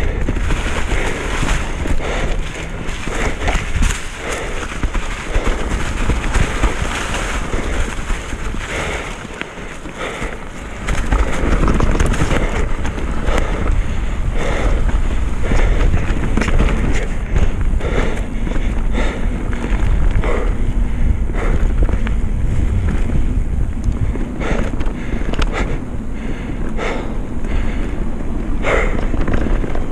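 Mountain bike riding fast down a muddy dirt trail: wind rushing over the camera microphone, with tyre noise and frequent knocks and rattles of the bike over bumps. The wind rush gets louder from about eleven seconds in.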